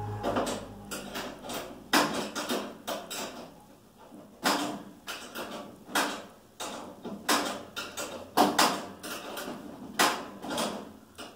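A wrench clanking on a bolt and the galvanized sheet-steel body of a treadle chicken feeder as the treadle bar's bolt is tightened: a dozen or so sharp metallic knocks and rattles, irregularly spaced.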